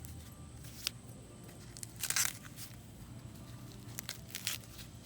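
Dry corn husk being torn and peeled back from an ear, one ripping rustle about two seconds in, with a few short crackles of leaves and husk later.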